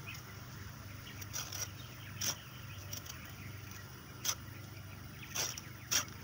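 Folding pruning saw scraping across a cassava stem cutting in about five short, irregularly spaced strokes, scoring the bark lightly around the stem.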